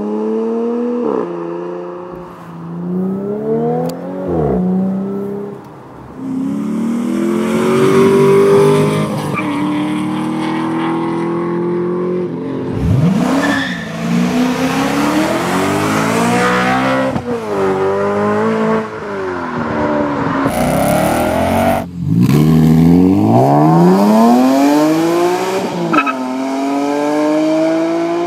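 Several performance cars accelerating hard one after another, each engine note climbing and then dropping back at every upshift. First a 2013 Audi S5 Cabriolet's supercharged V6 through an AWE Touring exhaust, later a BMW M3 E92's V8 through a Supersprint exhaust.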